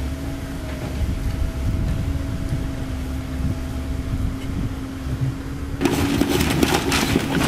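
Komatsu PC130F-7 excavator's diesel engine running steadily, a low rumble with a constant hum. About six seconds in the sound changes abruptly: sharp crackling and knocking noises ride over the engine.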